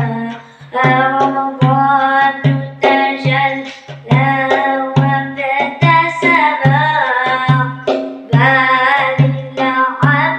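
Nasheed music: a melodic line over a steady low drum beat, about two and a half beats a second.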